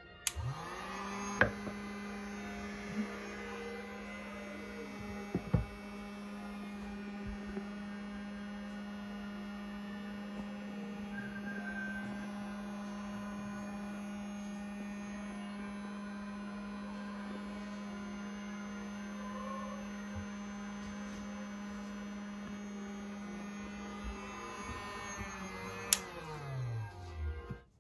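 Breville PolyScience smoking gun's fan motor spinning up, then running with a steady hum while it pumps smoke into the cloche. A few sharp clicks come over it, one just before the motor is switched off and winds down near the end.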